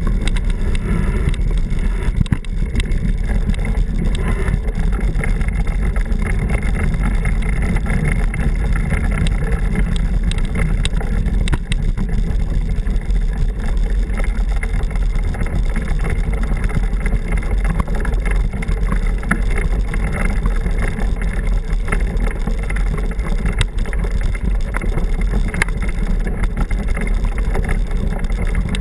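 Steady low rumble and wind buffeting on the microphone of a camera riding along on a mountain bike, with tyres rolling over a rough dirt forest trail. It is loud and even, with no break.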